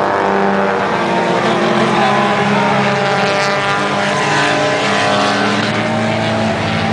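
Several stock race cars' engines running together around an oval track. Their pitches rise and fall through the turns and straights.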